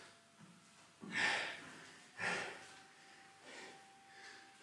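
A man breathing hard after a round of high-intensity exercise, with short heavy exhales about a second apart as he recovers.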